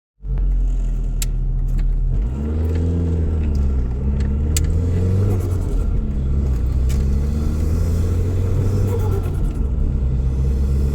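Saab 9000 2.3 turbo inline-four engine running. Its revs rise about two seconds in and waver up and down for a few seconds before settling, with a few sharp clicks along the way.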